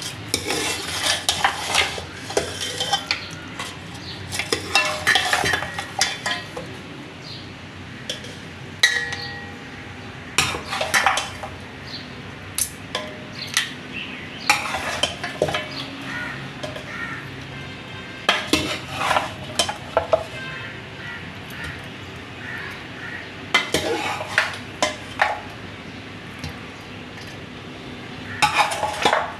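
Metal serving spoon scraping and clinking against a cooking pot and serving dish as cooked mutton is dished out, in repeated bursts of clatter a second or two long with short pauses between.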